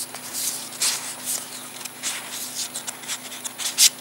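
Stack of board-game cards being fanned out and slid through the fingers: a string of quick papery rustles and flicks, the sharpest one near the end.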